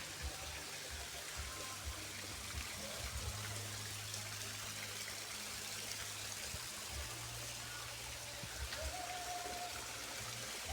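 Running water at a natural bathing spring, a steady rushing and trickling, with a low steady hum underneath and a short high held tone near the end.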